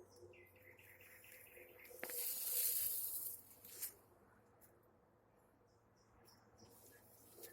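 Nightingale singing: a fast run of short repeated notes, then a loud hiss lasting about a second and a half, followed by a few faint ticks.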